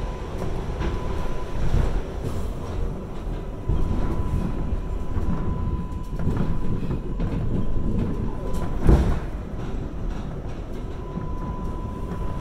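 New York City subway train running between stations, heard from inside the car: a steady low rumble with wheel clatter over the rails and a faint steady high tone, and one loud knock about nine seconds in.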